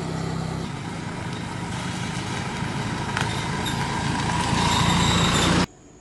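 A motor vehicle's engine and tyres passing along the road, growing louder over a few seconds, then cutting off suddenly near the end.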